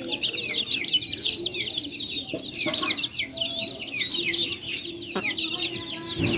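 A flock of chickens: many chicks peeping continuously in dense, high chirps, with a hen clucking lower underneath.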